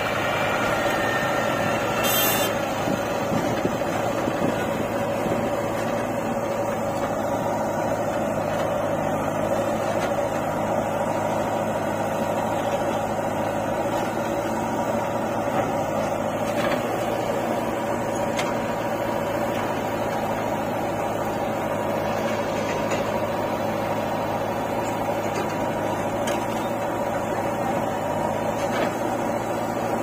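Diesel engines of a JCB 3DX backhoe loader and a John Deere tractor running steadily side by side while the backhoe loads mud into the tractor's trolley.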